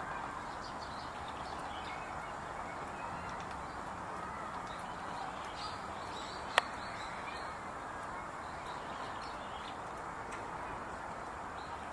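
Faint, high-pitched bird chirps scattered over a steady background murmur, with one sharp click about halfway through.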